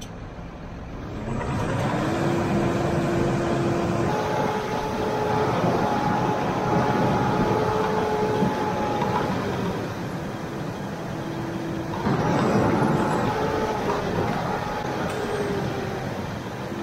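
John Deere loader tractor running under load as it drives up onto a pile of cracked high-moisture corn to pack it: a heavy engine and drivetrain noise with a steady whine that shifts pitch several times, louder in two stretches as the tractor works.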